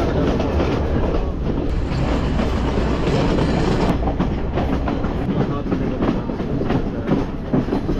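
Passenger train rolling along the track, with a steady low rumble and irregular clacking from the wheels over the rails, heard through an open coach window.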